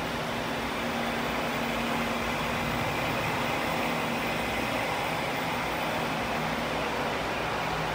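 Steady low engine hum of the arriving ferry boat General Joe Potter, under an even rushing noise.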